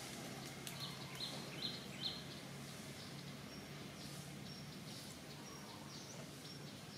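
Outdoor ambience: a steady low hum under repeated short, high chirps, with a few faint clicks about one and two seconds in.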